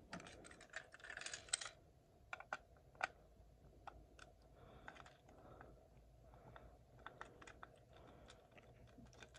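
Faint, irregular plastic clicks and taps from a Plarail toy locomotive being handled upside down while a small screwdriver works its battery cover to fit a AA battery. The clicks are thickest in the first couple of seconds, then come only now and then.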